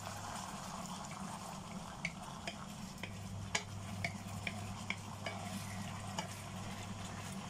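Chilli bean sauce simmering and sizzling around a braising fish in a wok, as a wooden spatula stirs and scrapes the pan, over a steady low hum. About a dozen sharp little ticks sound from about two seconds in until near six seconds.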